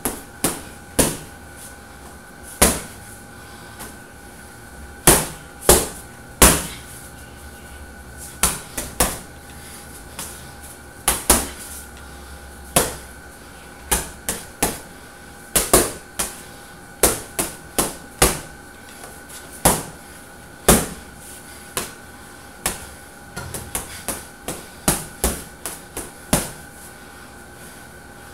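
Boxing gloves striking a hanging heavy punching bag: sharp thuds at irregular intervals, often in quick runs of two or three punches.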